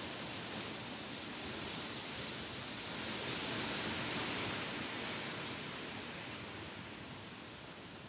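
Wind blowing through trees, a steady rushing hiss. About halfway in, a rapid high-pitched trill of about a dozen pulses a second joins for some three seconds, then stops, and the sound drops abruptly to a quieter hush near the end.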